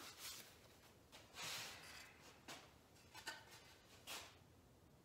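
Near silence with a few faint rustles and light taps as a rag is rubbed over the hands and a walnut board is picked up and handled.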